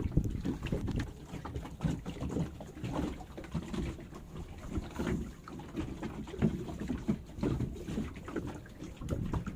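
Uneven low rumble of wind on the microphone, with scattered small knocks and bumps.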